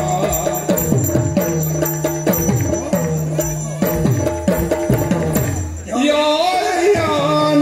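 Yakshagana accompaniment music: repeated drum strokes with gliding pitch over a steady drone, with a high metallic ringing above. About six seconds in, a voice starts singing a wavering line over the drone.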